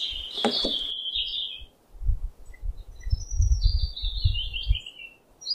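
Small birds chirping in short, jittery high-pitched phrases, in two bouts with a short gap between. Dull low thumps sound underneath the second bout.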